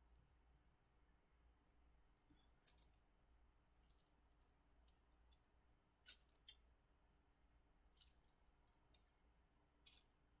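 Near silence, broken by faint scattered clicks and crinkles of parchment paper as a clothes iron is pressed and slid over it.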